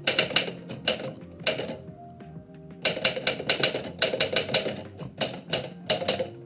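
Typewriter keys striking in quick bursts with short pauses between, the densest run in the middle, with soft background music underneath.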